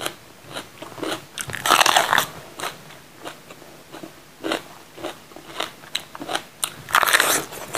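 Close-up chewing of raw green bell pepper: crisp, wet crunches and small clicks. Two louder crunching snaps come about two seconds in and again near the end as the crisp pepper flesh is broken.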